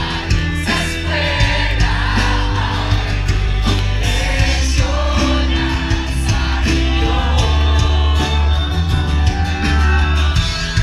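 Electronic dance-pop music with a heavy bass line and a steady beat, with a singing voice over it.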